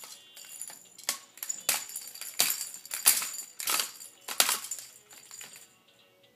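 Baby activity jumper rattling as the baby bounces in it: about six jingling, rattling strokes in a steady rhythm roughly two-thirds of a second apart, dying away near the end.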